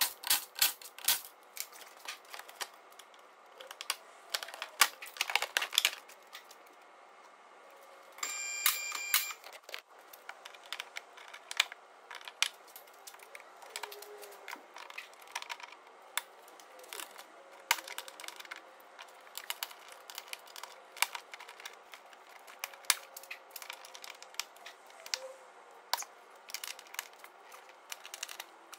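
Irregular clicks, taps and rattles of a small ratchet working 10 mm bolts up inside a car's front wheel arch, mixed with crackles of the plastic arch liner being handled. A steady whine sounds for just over a second about 8 seconds in.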